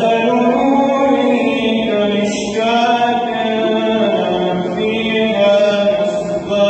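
A man chanting Quran recitation in the melodic tajweed style, drawing out long ornamented notes that rise and fall in pitch, with brief pauses between phrases.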